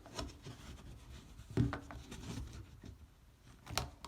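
Hand handling noise while working on a sink drain: rubbing and scraping with two light knocks, about a second and a half in and near the end.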